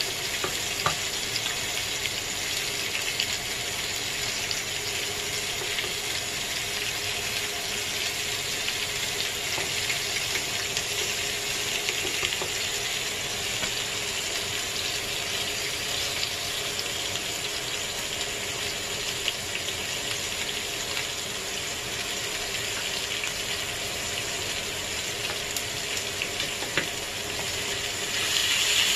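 T-bone steaks sizzling steadily on a hot ridged grill pan as butter melts on top of them, with a few light clicks of metal tongs and a spoon against the pan.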